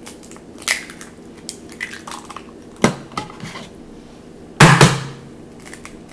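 Eggs being cracked on a metal cupcake pan: a few sharp knocks of shell against metal, the loudest a quick double knock near the end, with small shell crackles and clicks between.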